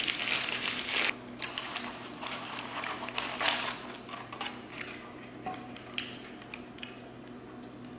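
Paper burger wrapper being crumpled and rustled, loudest in the first second, then crinkling of a paper fast-food bag with scattered small clicks and taps as food and a plastic container are handled.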